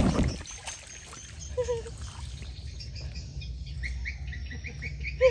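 Small birds chirping in a steady repeated pattern, about two short calls a second, starting about three seconds in, over a low steady rumble. A burst of noise at the very start dies away within half a second.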